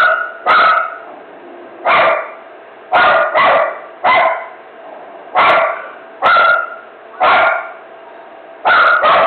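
A dog barking in a frenzy: about eleven loud, short barks at uneven intervals, some coming in quick pairs.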